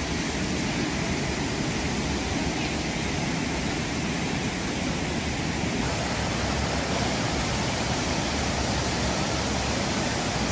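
Waterfall rushing down a rocky cascade: a steady, even wash of water noise that grows slightly fuller about six seconds in.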